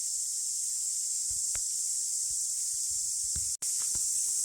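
Steady, high-pitched chorus of cicadas ringing through the bush, broken by a momentary dropout about three and a half seconds in.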